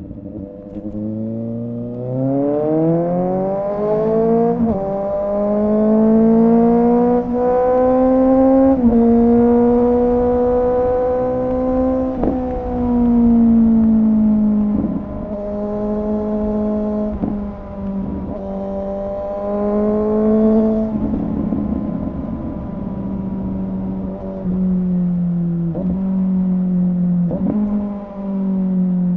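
Suzuki GSX-S750 inline-four motorcycle running through a Yoshimura R11 exhaust with the dB killer removed, under way. It accelerates with the pitch climbing and dropping sharply at each of two upshifts in the first nine seconds, then eases off and cruises with small rises and dips in throttle.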